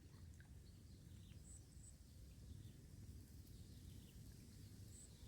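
Near silence: faint outdoor ambience with a low rumble of wind on the microphone and a few brief, faint high chirps.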